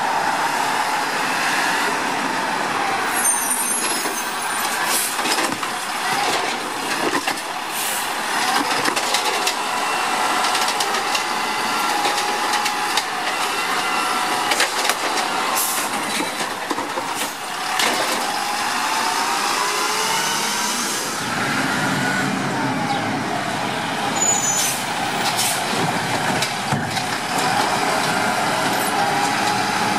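Automated side-loader garbage truck at work: its engine runs and its hydraulics whine, rising and falling as the arm grabs, lifts and dumps wheeled carts, with scattered sharp knocks of the carts and the arm.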